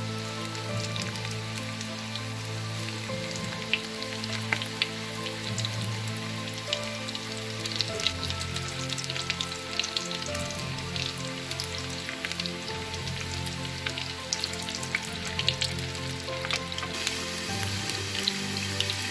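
Hot oil sizzling and crackling with frequent small pops as breaded meat-and-purple-rice balls shallow-fry in a pan, under steady background music.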